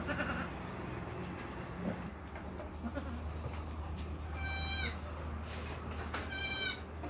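Newborn Assam Hill Goat kid bleating twice, two short high-pitched cries about two seconds apart, each dropping slightly in pitch at the end.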